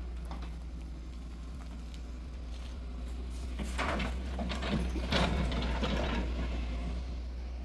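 Hyundai excavator's diesel engine running with a steady low drone, and about halfway through a rush of clattering soil and stones for some three seconds as earth is handled into the dumper.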